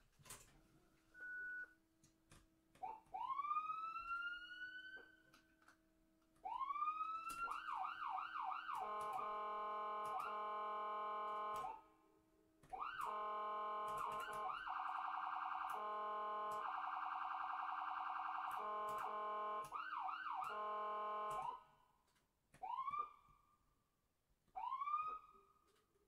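Ambulance's electronic siren running through its tones: a few slow rising wails, then a run of quick up-sweeps, then long held blasts with two short breaks and a fast warble in the middle. Near the end come short rising wails again.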